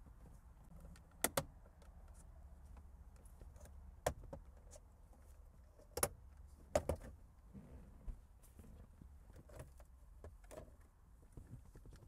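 Sharp plastic clicks and snaps, about five spread out over several seconds with a double click about two-thirds through, as a pick tool and screwdriver pry the rear vent panel of a car's centre console loose from its clips.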